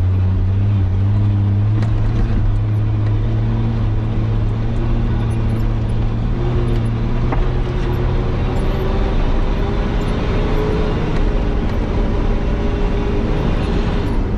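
Nissan Patrol Y60's engine running at low, nearly steady revs as the 4x4 drives along an off-road track, its note lifting slightly around the middle and settling again, with a couple of light knocks from the vehicle.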